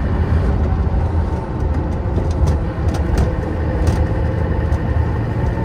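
Land Rover Defender being driven on the road, heard from inside the cab: a steady low engine drone with road noise and a few light knocks.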